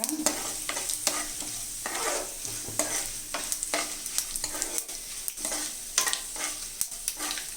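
Tempering of dals, garlic, dried red chillies, mustard seeds and cumin sizzling in hot oil in a kadai while being stirred with a spatula, with frequent short clicks and scrapes over a steady hiss.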